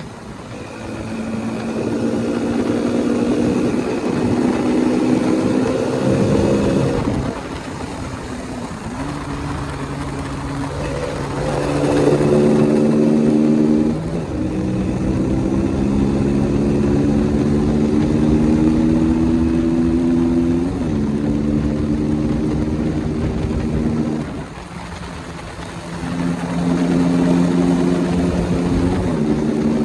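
KTM single-cylinder motorcycle engine accelerating through the gears: the engine note climbs steadily in pitch, then drops suddenly at each upshift, several times over. There are two short easings of the throttle, one a few seconds in and one near the end, before it pulls again.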